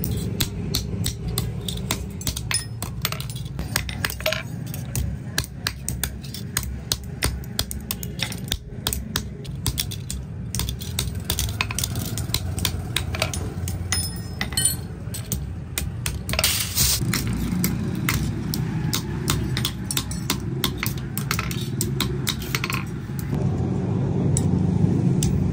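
Many quick, irregular metal clinks and knocks, steel pieces striking steel, over a steady low machine hum.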